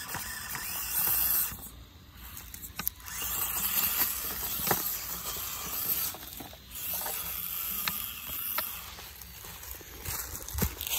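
Axial SCX24 micro crawler's small electric motor and gears whining high as it crawls over rock and dry leaves, with a few sharp knocks as the truck hits the rock and tumbles over.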